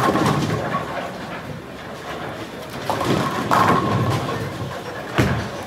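Bowling balls rolling down wooden lanes with a low, steady rumble and pins crashing, the loudest crash right at the start and more around three and a half to four seconds in, with a sharp knock a little after five seconds.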